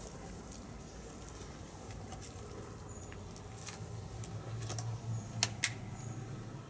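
Footsteps crunching on debris: scattered small clicks and crackles, two sharper clicks about five and a half seconds in, over a low hum that swells in the middle.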